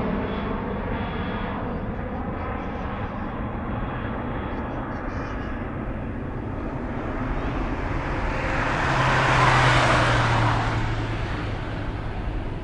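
Jet engines of an ANA Boeing 767-300 climbing away after takeoff: a steady rumble. About nine seconds in, a louder rush of noise with a low hum swells and then fades, from something passing closer to the microphone.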